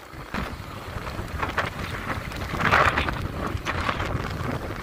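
Wind buffeting the microphone in uneven gusts over a low rumble, with the strongest gust about three seconds in.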